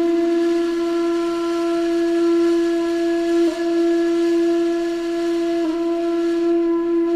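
A wind instrument holding one long, steady note, briefly re-struck twice. This is the TikTok 'ancient Egypt' trend sound that is played to cats.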